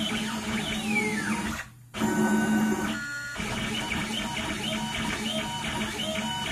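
Stepper motors of a DIY CNC pen plotter whining as it draws, the pitch sweeping up and down as the pen traces curves, over a steady low hum. The sound drops out briefly a little under two seconds in, then goes on with shorter, repeated pitch rises.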